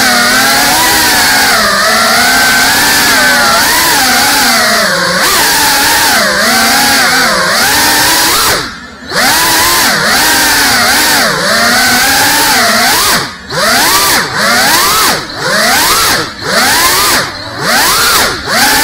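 GEPRC Cinelog 35 ducted FPV cinewhoop drone flying: its four brushless motors and propellers whine, the pitch rising and falling constantly with the throttle. About six times in the second half the sound cuts out briefly and comes back, as the throttle is chopped for flips and rolls.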